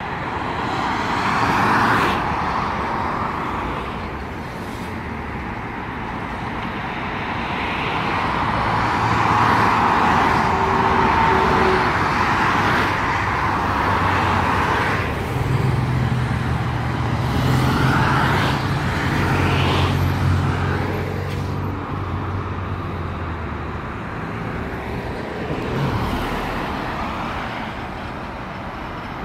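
Expressway traffic noise: a steady wash of tyre and engine sound from cars on the road below, swelling and fading as vehicles pass. There is a low engine hum through the middle stretch.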